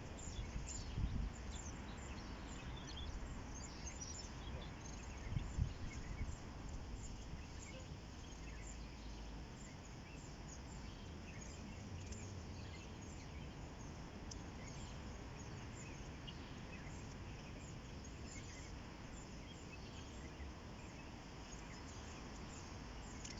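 Riverside outdoor ambience: a steady low rumble with many small high bird chirps scattered throughout. There are two dull low thumps, about one second in and again about five seconds in.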